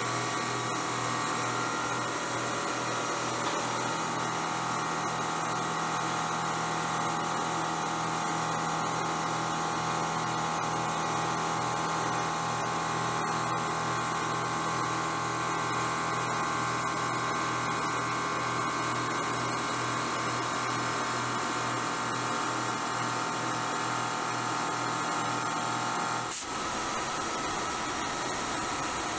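CNC mill's spindle and end mill facing a hardened-grade 52100 tool-steel die blank, a steady high whine with a pulsing low hum, over the hiss of an air blast clearing chips. The whine breaks off abruptly near the end, leaving the hiss.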